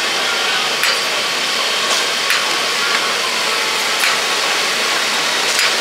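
Steady hiss of a deep fryer with oil sizzling, and a metal scoop clicking and scraping against a steel tray of fried sweet potato balls five or six times.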